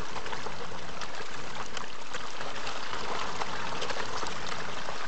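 A dense mass of fish thrashing at the water's surface in a feeding frenzy: a steady churning of many small splashes.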